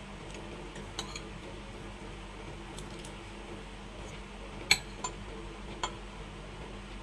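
Cutlery clinking against a plate as eating begins: a few sharp separate clicks, the loudest about two-thirds of the way in, over a steady low hum.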